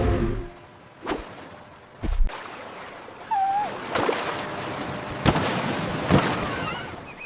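Sea water splashing and sloshing, broken by several sudden sharp splashes, with a short wavering squeal about three seconds in.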